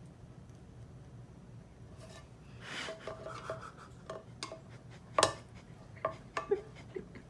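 A screwdriver working the loose handle screw of a nonstick frying pan: scraping and rubbing, then a run of small clicks, one sharper than the rest about five seconds in.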